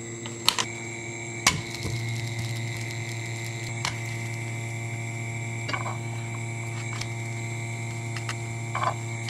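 Electric cooktop under a pan giving a steady electrical hum with a high whine, the hum growing stronger about two seconds in. Metal chopsticks click sharply against the pan and the naan a few times, loudest near the start.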